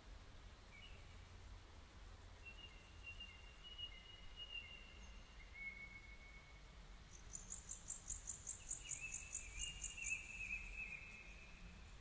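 Faint outdoor birdsong: thin, drawn-out high whistles, some gliding slightly in pitch. A fast, even run of very high ticks comes in from about seven seconds in.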